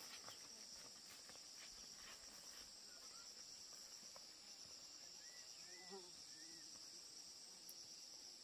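Faint, steady high-pitched chorus of insects such as crickets, with a few soft footsteps on a dirt path in the first couple of seconds and a few short chirps around the middle.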